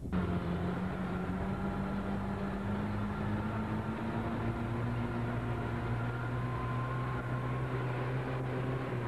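Vehicle engine running steadily at driving speed, a low drone heard from inside the cab on a rough dirt track.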